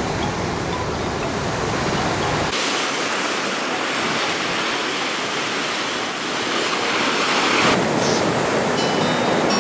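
Ocean surf breaking on rocks and washing ashore: a steady, dense rushing hiss. A heavy low rumble sits under it for the first couple of seconds, and the sound changes abruptly about two and a half seconds in and again near eight seconds. Faint music comes in near the end.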